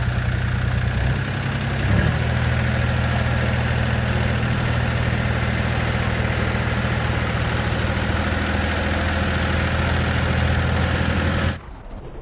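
Belarus MTZ-320.4 tractor's Lombardini three-cylinder diesel running at a steady, even speed as the tractor creeps up a ramp, with a brief knock about two seconds in. Near the end the sound drops abruptly to a much quieter, duller level.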